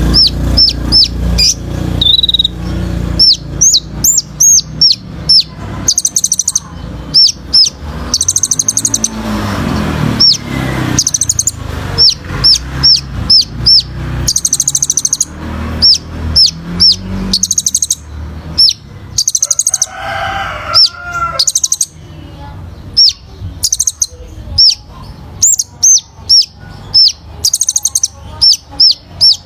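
Sunbird (kolibri ninja) singing: runs of sharp, high, down-slurred chirps in quick succession, broken by fast high-pitched trills.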